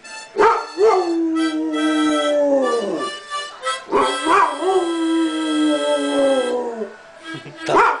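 A dog howling along to a harmonica: two long howls, each sliding down in pitch at its end, and a third starting near the end, while the harmonica plays held chords.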